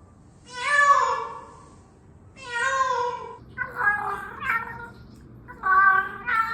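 A cat meowing repeatedly: about five meows, the first two long and drawn out, then shorter ones coming more quickly.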